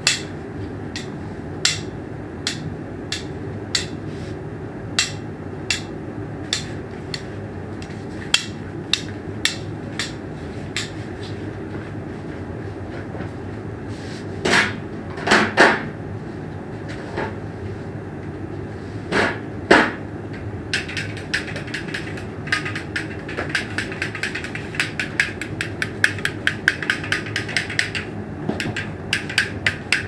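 Sharp taps or knocks, about one every second, over a steady low hum. Two longer, louder sounds come around the middle, and in the last third the taps speed up into a quick clicking run of several a second.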